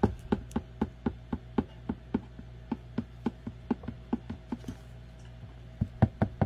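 Rhythmic knocking, about five sharp knocks a second at first, then slower and uneven, with a pause and a quicker run near the end, over a steady low hum.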